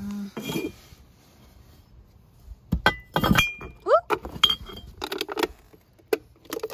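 Ceramic pumpkin jar and its lid clinking against each other as they are handled: a few separate sharp clinks with short ringing, and a brief rising squeak about four seconds in.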